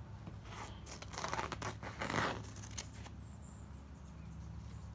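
Scissors snipping and rustling through a pillow's down-and-feather stuffing: a few crisp cuts in the first couple of seconds, then softer rustling.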